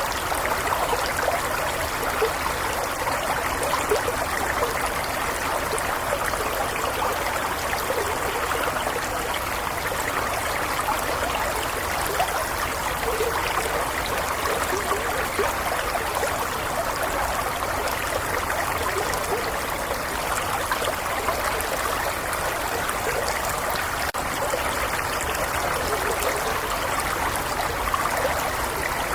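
A gentle stream flowing steadily, with a continuous trickling and gurgling of running water.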